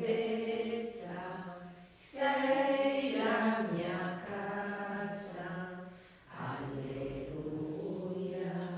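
A congregation of nuns singing a slow liturgical chant together, in long sustained phrases with brief breaks about two seconds and six seconds in.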